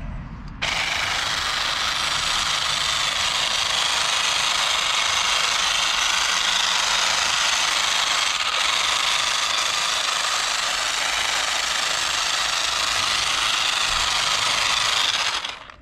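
Battery-powered hedge trimmer running steadily, switched on about half a second in and switched off just before the end.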